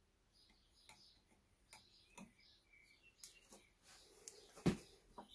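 Scattered light clicks and taps of small metal parts, clutch components and bolts, being handled on a workbench, with one louder knock near the end. Faint bird chirps in the background.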